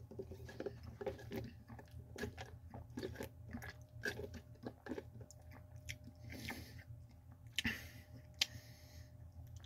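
Close-up mouth sounds of a man chewing and swallowing, with sips through a plastic straw from a fountain-drink cup: irregular small clicks and smacks, and a couple of short breathy hisses in the second half.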